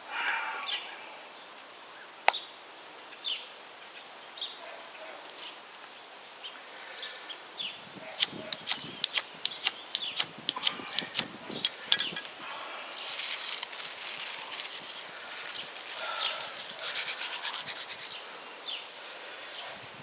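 A ferro rod being struck with a scraper to throw sparks into tinder: a quick string of sharp scrapes about eight seconds in, then a longer run of rapid scraping strokes. Birds chirp in the background.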